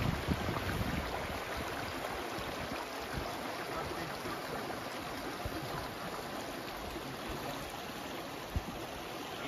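Shallow river running over rocks and small riffles: a steady rush of water, with a single low knock near the end.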